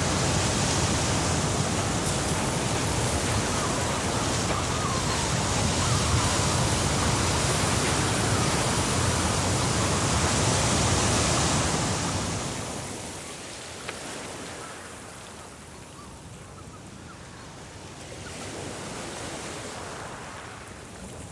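Sea surf washing up on a sandy beach, a steady rush of breaking waves. About twelve seconds in it fades to a quieter hiss.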